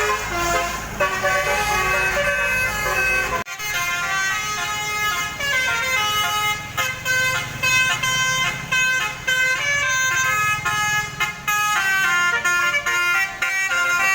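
Basuri musical bus horn, a set of air trumpets, playing a quick melody of stepped, overlapping notes. About three and a half seconds in the sound cuts off abruptly and a new tune starts.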